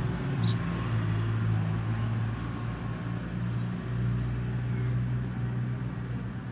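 Steady low motor hum, like an engine running nearby, with one short click about half a second in.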